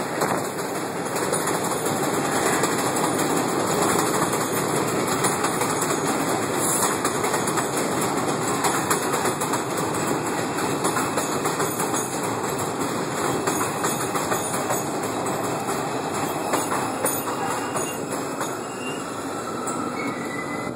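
R142 subway train arriving: steady rumble of its steel wheels on the rails as the cars pass close by, easing a little as the train slows near the end.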